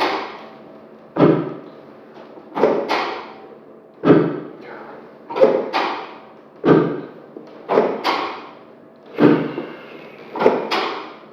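Chiropractic drop table thumping over and over as its drop sections fall under the adjuster's thrusts down the spine. There are about a dozen heavy thumps, roughly one a second, some in quick pairs, each with a short ring-out.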